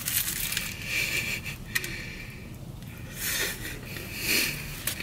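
Biting into an egg tart's pastry crust and chewing it, with a few small clicks and soft noisy swells.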